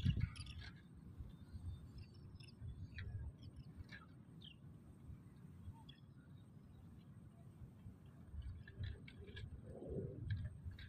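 Faint outdoor ambience: scattered short, high bird chirps over a low, uneven rumble.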